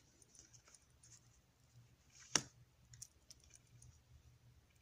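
Faint clicks and light scraping of glossy oracle cards being handled and slid over one another in a hand-held flip through, with one sharper click a little over two seconds in.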